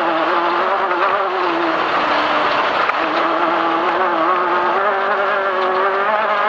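Off-road race vehicle's engine running hard at steady high revs, its pitch wavering slightly as the throttle eases and picks up again, over a steady rushing noise, heard from on board.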